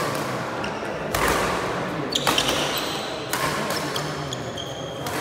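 Badminton rackets striking the shuttlecock in a doubles rally: three sharp hits about a second apart, echoing in the hall, with short high squeaks from players' shoes on the court floor between them.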